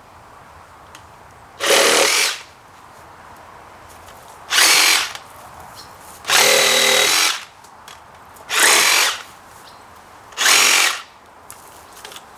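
A power tool run in five short bursts about two seconds apart, each lasting half a second to a second, with quiet between them.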